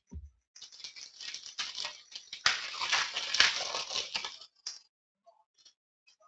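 A foil trading-card pack crinkling and tearing open, with cards rustling as they are pulled out, loudest in the second half.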